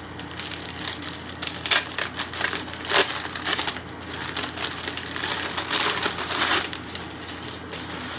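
Clear plastic packaging crinkling and crackling as it is handled, in an irregular run of crackles with a louder stretch of rustling a little past the middle.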